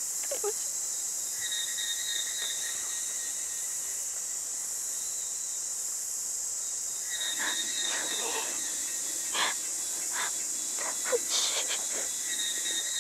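Steady high-pitched chorus of crickets and other insects in forest ambience, with a thin high whistle that comes and goes a few times. In the second half a woman sobs and sniffles in short irregular breaths.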